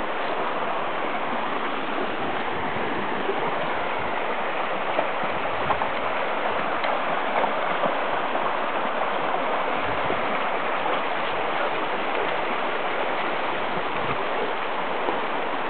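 Shallow, rocky stream running steadily over stones.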